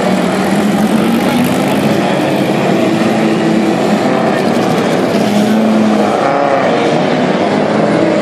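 Several historic touring race car engines rumble loudly at low speed as the cars roll past one after another. About six seconds in, one engine's revs rise and fall briefly.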